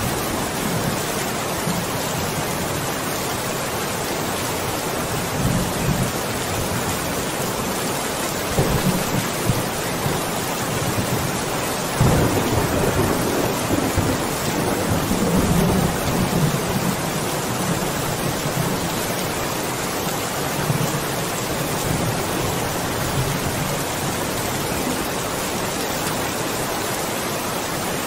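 Steady heavy rain falling, with low rumbles of distant thunder swelling up several times, the loudest about halfway through.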